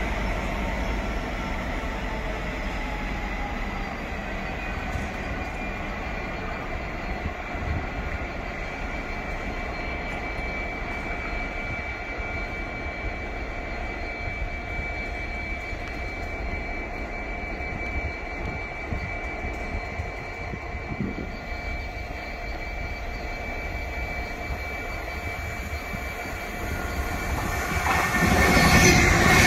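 A train running on the main line: steady rumble with several held whining tones, a few of them sliding slightly lower in the first seconds. The sound swells louder near the end.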